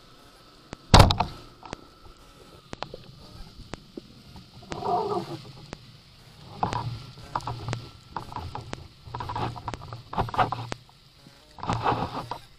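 Rubber-band speargun fired underwater: one sharp, loud crack about a second in as the shaft is released. Then several bursts of rasping noise over a background of faint underwater clicks.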